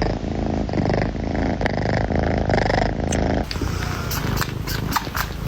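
Domestic cat purring in rhythmic waves. About three and a half seconds in, the purring gives way to a run of sharp clicks.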